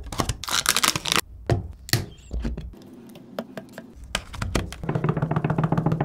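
Gloved hands handling a McDonald's paper cup and its plastic lid: a run of sharp clicks and taps, sparser in the middle, then a dense patter of rapid ticks over a low steady hum in the last second or so.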